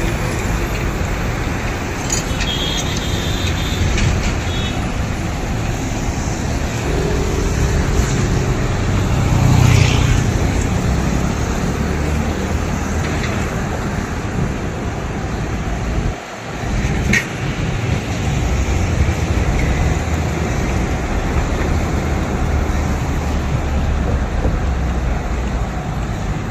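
Road traffic noise: a steady rumble of vehicles on an open road, swelling about ten seconds in as a vehicle passes close.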